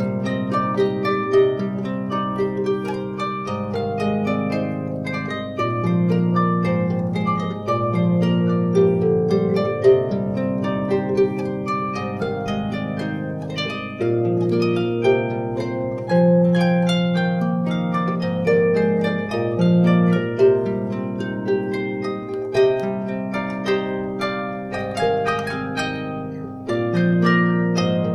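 Solo harp, built by Alexander Anushat, played by hand: plucked melody notes over a low bass line, each note ringing and fading.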